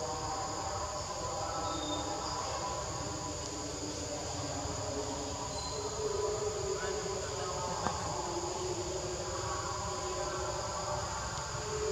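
Steady drone of forest insects: a continuous high-pitched buzzing over a lower, wavering hum.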